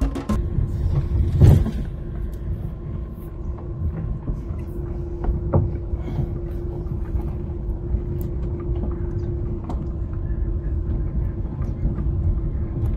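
A car driving slowly over a rough dirt track, heard from inside the cabin: a steady low rumble of engine and tyres with a steady hum and scattered small knocks, and a louder bump about a second and a half in.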